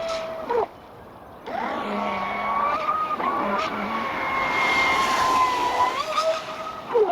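Traxxas Spartan RC boat's brushless motor whining at speed, with the hull rushing over the water. The throttle cuts out briefly under a second in, then the whine comes back and holds, dipping and rising in pitch near the end.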